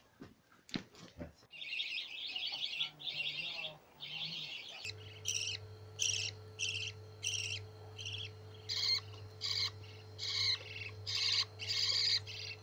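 Budgerigars chirping: a stretch of chattering warble, then a run of short chirps about two a second, over a low steady hum that starts about five seconds in. A few sharp knocks come in the first second or so.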